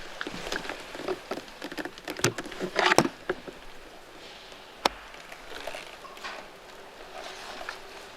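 Irregular rustling and snapping of brush and gear, with a louder burst near three seconds and a single sharp click about five seconds in.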